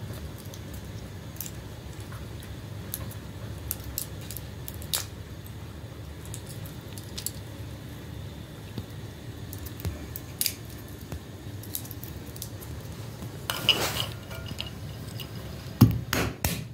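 Walnut shells being broken apart by hand: scattered small cracks and clicks of shell, a denser crackle of shell about three-quarters through, and a few louder knocks near the end.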